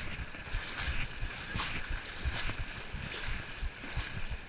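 People wading through knee-deep muddy water, with a splashing slosh about every two-thirds of a second as legs push through it, over a low rumble of wind on the microphone.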